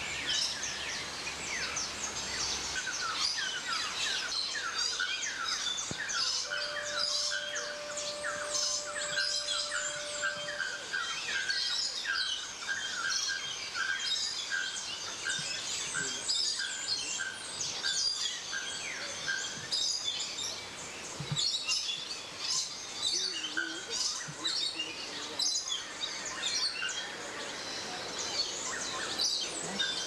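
A dense chorus of many birds chirping and calling at once. Through the middle, one bird repeats a short note about twice a second. About six seconds in, a steady tone holds for about four seconds.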